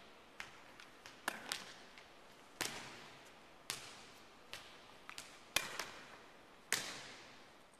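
Sharp smacks of volleyballs at irregular intervals, roughly once a second, some in quick pairs. Each smack echoes through a large empty gym.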